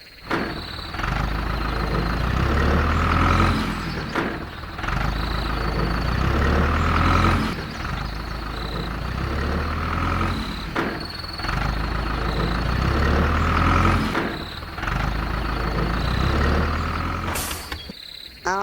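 A heavy vehicle's engine sound, swelling and easing in a repeating cycle of about three and a half seconds, with faint short high beeps.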